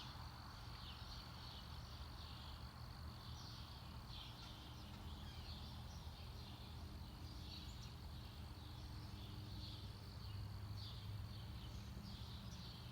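Faint outdoor background noise with a low steady hum, and short high chirps recurring about once a second from small animals.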